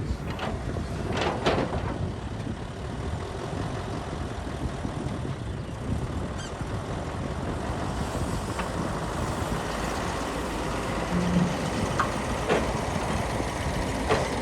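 Heavy diesel machinery, an excavator working by a dump truck, running steadily, with several sharp knocks and clanks: a pair about a second in, and more near the end.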